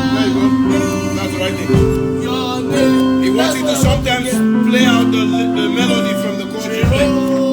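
Electric keyboard playing sustained gospel chords that change every second or two, with a voice singing the melody over them.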